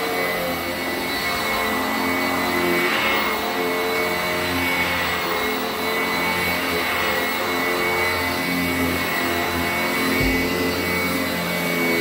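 Sanitaire 886E commercial upright bag vacuum running over carpet, its motor giving a steady whine whose pitch wavers slightly as it is pushed back and forth.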